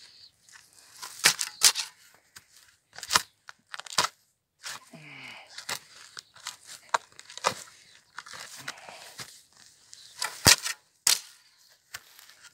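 Steel spade being driven into grassy, root-bound soil and levered: a series of irregular crunching, tearing cuts through turf and earth, the sharpest about ten seconds in.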